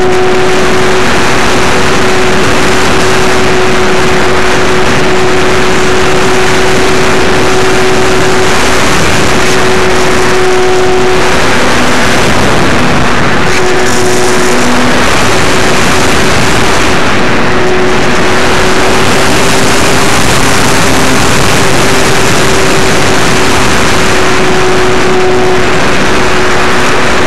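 Apprentice S15e's brushless electric motor and propeller giving a steady whine at one pitch, heard from a camera on board the plane under loud wind rush over the microphone in strong gusty wind.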